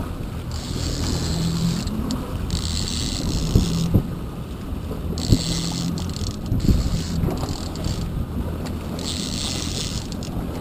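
A trolling boat's engine is running with a steady low hum, with wind buffeting the microphone and water washing at the stern. A high hiss comes and goes in spells of about a second, along with a few short knocks.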